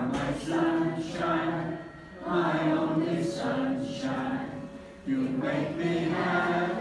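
Older men singing a song unaccompanied, in held notes, in phrases of two to three seconds with short breaks between them.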